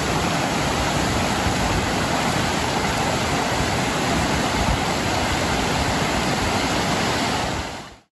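Waterfall pouring down a rock face, with its stream rushing over boulders: a steady rush of water that fades out near the end.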